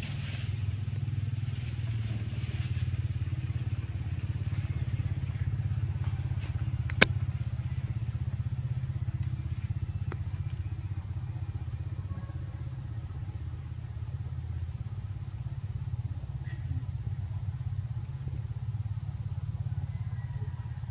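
Steady low hum of a running engine, with one sharp click about seven seconds in.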